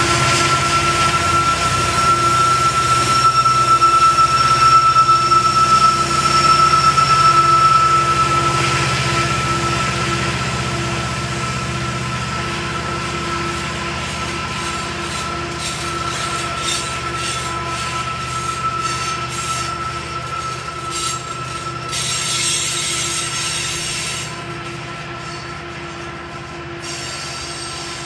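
Diesel helper locomotives of a heavy coal train grinding slowly past upgrade, their low engine rumble fading after about ten seconds as loaded coal hoppers follow. A steady high-pitched wheel squeal from the curve runs throughout, with a run of clicking wheels on the rails in the second half.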